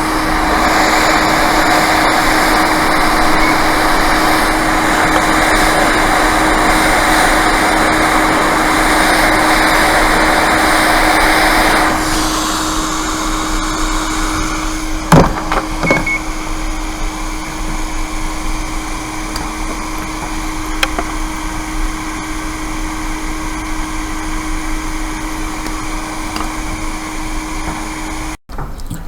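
A small electric blower running steadily: a rushing air noise with a constant hum, louder for about the first twelve seconds and then dropping to a lower setting, with a couple of light clicks a few seconds after the drop.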